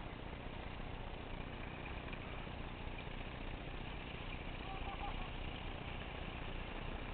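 Diesel engines of two ST43 diesel-electric freight locomotives running at a distance, a steady rumble that grows slightly louder.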